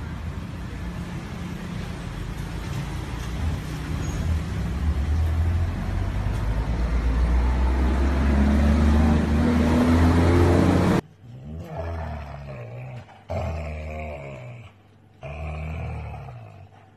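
A steady rumbling noise, like passing traffic, grows slowly louder with a rising whine near its end, then cuts off about eleven seconds in. After it come short growls and whines from dogs, a puppy mouthing a husky's face in play, several separate calls that bend in pitch.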